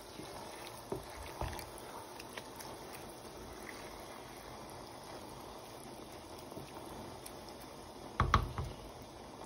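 Rice and chicken in water simmering in a pan while a spatula stirs through it: a steady bubbling hiss with a few faint clicks, and a louder knock of the spatula near the end.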